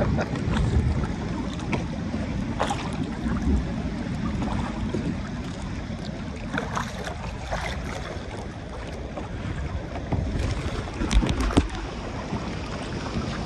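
Wind buffeting the microphone with water splashing and lapping around a kayak on choppy sea. There are scattered sharper splashes, and a louder burst about eleven seconds in.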